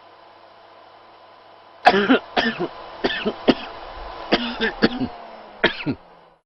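A man having a coughing fit: about a dozen harsh coughs in three quick clusters, starting about two seconds in, over a faint steady hum.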